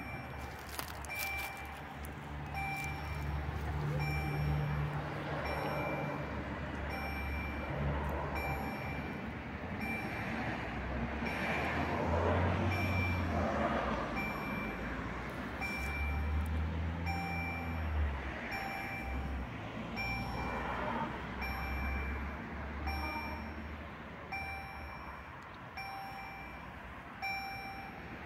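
EHL-S10 electronic level-crossing bell sounding a steady, evenly repeated ding, warning that a train is approaching. Road vehicles run by underneath it.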